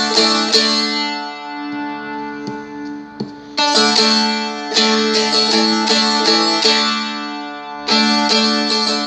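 Seagull Merlin strumstick-style dulcimer being strummed, chords ringing over steady drone strings. About a second in the strumming stops while a chord rings and fades, picks up again near the middle, and pauses briefly once more before the end.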